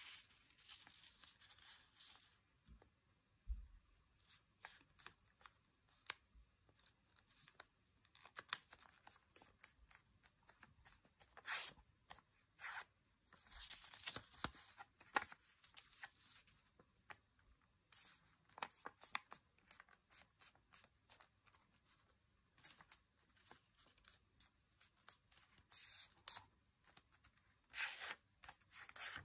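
A small square of origami paper being folded and creased by hand: soft crinkling and rustling in short, irregular bursts with sharper crackles.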